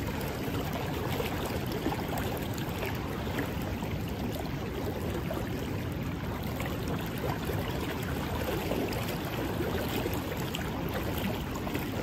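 Steady rushing of a river's flowing current.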